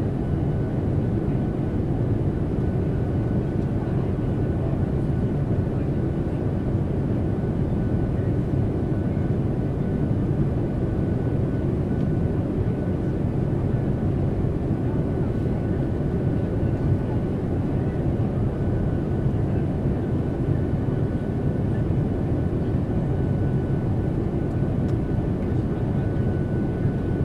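Airplane cabin noise in steady flight: a constant low rumble and rush of air that never changes, with a faint thin steady tone above it.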